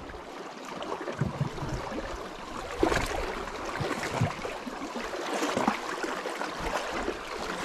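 Sea water lapping and splashing against shoreline rocks: an uneven wash with small irregular splashes.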